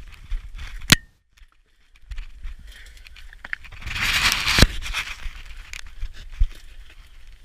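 Scraping, crunching and knocking noises: a sharp knock about a second in, then a louder scraping rush about four seconds in that ends in another knock.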